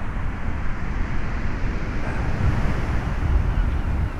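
Gale-force wind buffeting the microphone in a steady low rumble that rises and falls with the gusts, with a rough, churning sea behind it.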